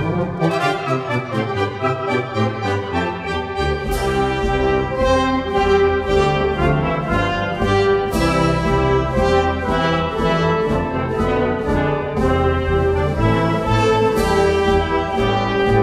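Orchestral music with prominent brass.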